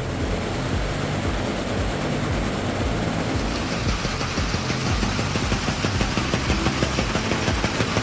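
Mechanical flapping-wing rig running: a steady motor whir with a rapid clatter of the taxidermy bird wings beating, getting brighter and harsher about three and a half seconds in.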